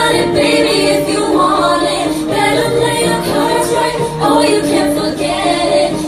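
Five-piece female pop group singing a pop song with its music, played loud through stage PA speakers.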